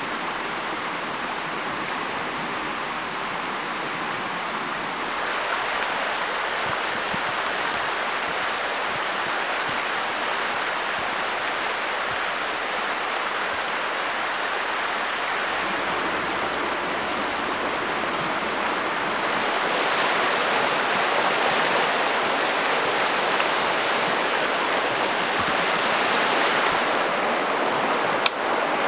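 Steady rushing of river water running over rocks, a little louder and brighter from about two-thirds of the way through, with one sharp click near the end.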